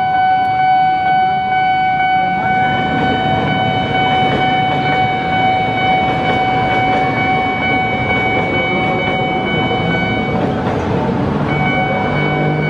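Electric commuter train passing over a level crossing, its rumbling running noise building about two seconds in. Over it a steady high tone with several overtones sounds almost throughout, its upper part breaking off briefly near the end.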